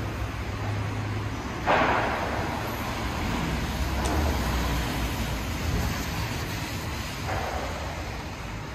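City street traffic: motor vehicles passing with a steady low engine rumble. A sudden loud rush of noise comes about two seconds in and fades over the next few seconds, and a smaller one comes near the end.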